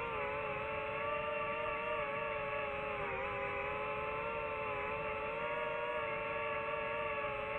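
FPV quadcopter's electric motors and propellers whining steadily in cruise flight, several close pitches running together; the pitch sags briefly about three seconds in as the throttle eases, then settles.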